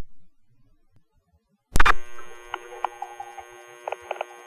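Fire department two-way radio traffic between calls: the squelch noise of the last transmission dies away into dead silence, then about 1.7 s in a radio keys up with a sharp click and the channel stays open with a steady hum and a few faint clicks, no voice yet.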